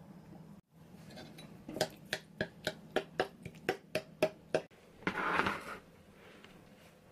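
A metal spoon clinking against a small ceramic bowl about three times a second while stirring a mayonnaise-and-yogurt sauce, followed about five seconds in by a short burst of noise.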